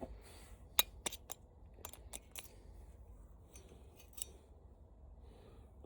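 Scattered light, sharp clicks and ticks, about eight in all, as hand tools and small parts of a floor fan being dismantled are handled, over a faint steady low hum.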